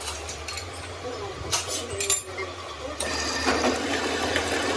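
Metal parts or tools clinking against each other over a low machine hum, then a workshop machine starts running steadily about three seconds in.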